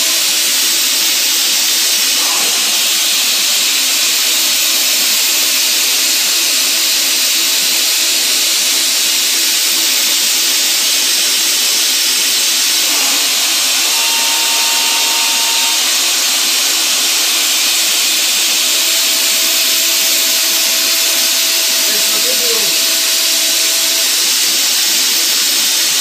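CNC mill machining Delrin with a 1/16" carbide end mill spun to 20,000 rpm by a Lyndex 5:1 speed-increaser head: a steady, even high-pitched whine and hiss with a low hum beneath. A couple of brief faint steady tones come and go about halfway through.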